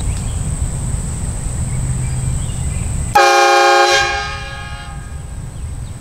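Portable train horn blasting once, about three seconds in: a loud chord of several tones held for about a second, then tapering off over the next second.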